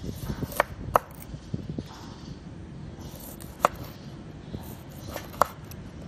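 Kitchen knife cutting limes on a wooden cutting board, the blade knocking sharply against the board four times: twice close together about half a second in, then twice more spaced out.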